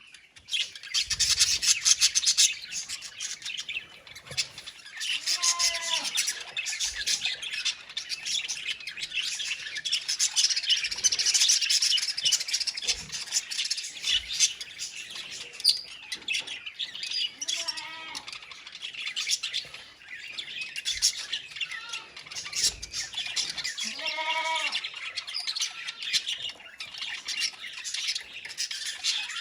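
A colony of budgerigars chattering and warbling continuously in a dense, high-pitched mass, with a few lower calls standing out about three times.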